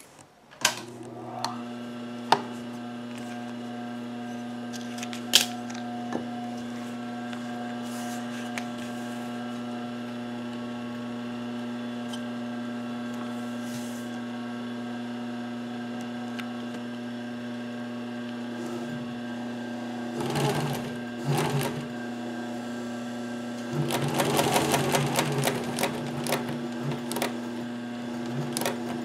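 Pfaff 1245 industrial sewing machine: its motor switches on about half a second in and then hums steadily. There are a few sharp clicks in the first seconds, then short bursts of rapid stitching through the upholstery material, the longest near the end.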